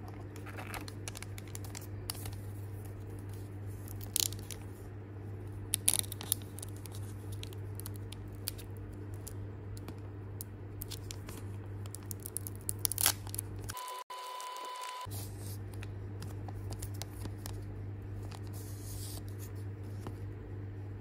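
Foil Pokémon Scarlet & Violet–151 booster pack wrapper being handled and torn open, crinkling with a few sharp crackles at intervals, over a steady low hum.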